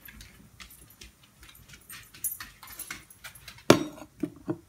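Light jingling and faint ticks, then three loud knocks and a clatter at about a second and a half before the end as the plastic pet-food bin is opened and the metal scoop inside it rattles.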